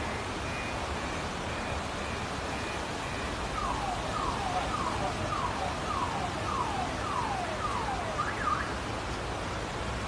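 Car alarm going through its cycle: short high beeps, then from a few seconds in a run of falling whoops about two a second, ending in a quick rising chirp. Under it runs a steady rush of floodwater.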